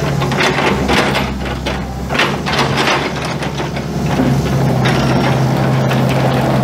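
Kubota KX080-3 excavator's 3.8-litre four-cylinder diesel running steadily, with irregular metallic clanks and rattles over it.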